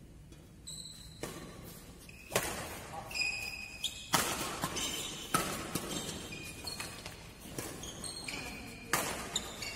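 Badminton rackets striking a shuttlecock in a fast doubles rally: sharp hits starting about a second in, roughly one every half second to a second. Short high squeaks of court shoes on the floor come between the hits.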